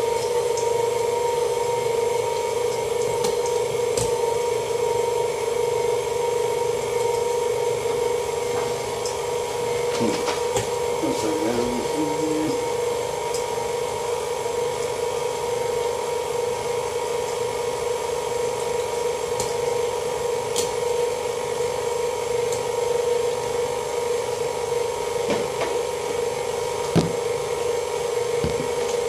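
Electric stand mixer running steadily with an even motor hum as it mixes ground beef. A sharp knock sounds near the end.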